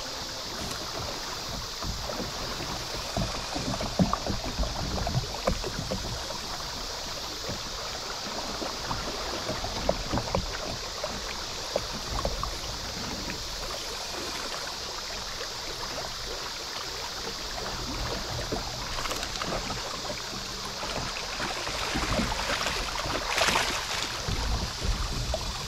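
Shallow river current rushing steadily past a kayak, with scattered small splashes and knocks. Near the end, a louder splashing as a hooked fish is brought in to the surface.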